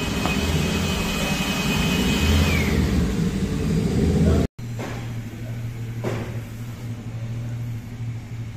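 A motor vehicle running, engine and road noise growing slightly louder, that cuts off abruptly about halfway through. It is followed by a steadier, quieter low hum with a couple of faint clicks.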